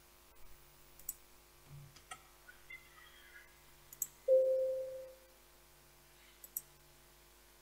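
Computer mouse clicking a few times, sharp and single. About four seconds in, a short Windows alert chime rings once and fades over about a second, as a 'file already exists, replace it?' warning box pops up.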